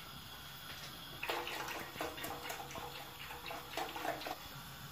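Full-cream milk poured from a carton into a pot, splashing faintly in uneven spurts. It starts about a second in and stops near the end.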